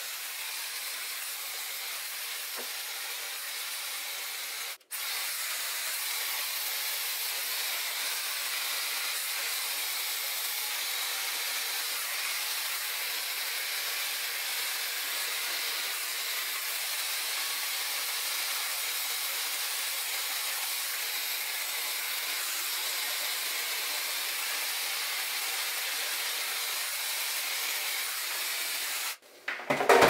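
Zuvi Halo hair dryer with its diffuser attachment blowing steadily, an even airy hiss. It breaks off for an instant about five seconds in, then runs on until it stops shortly before the end.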